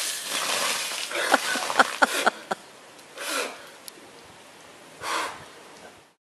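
A bucket of ice water pouring onto a man's head and splashing onto the patio, followed by several sharp clatters of ice cubes landing about one and a half to two and a half seconds in. Then two short, heavy breaths from the drenched man, a few seconds in and near the end.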